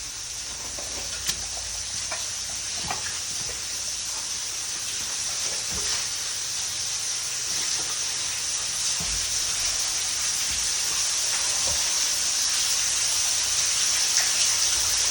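Steady rushing of water pouring down in a flooded mine tunnel, growing gradually louder, with a few faint knocks.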